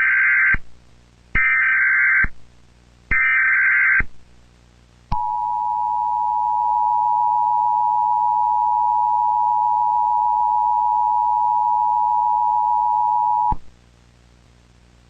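Emergency Alert System tones ahead of a tornado warning: three short bursts of the SAME digital header, each just under a second long, then the steady two-tone EAS attention signal held for about eight seconds before cutting off.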